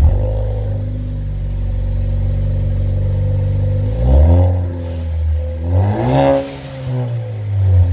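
Ford Focus ST engine starting, settling into a steady idle, then revved twice, briefly about four seconds in and again about six seconds in. It is running on its stock exhaust, before the Rev9 system goes on.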